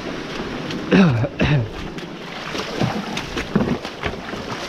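A man's two loud, short exclamations sliding down in pitch about a second in, then a few shorter breaths, over the steady wash of surf and wind buffeting the microphone while he runs across wet rocks between waves.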